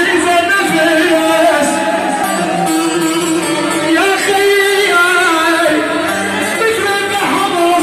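A man singing an Arabic mawwal live through a microphone and PA, in long wavering phrases over keyboard accompaniment.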